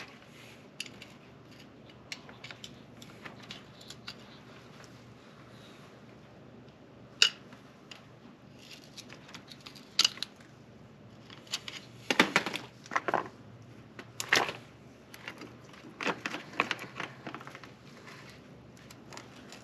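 Metal clinks and clacks of a new JT steel motorcycle drive chain being handled on its sprockets, sparse at first, then more frequent, with several sharper clanks in the second half.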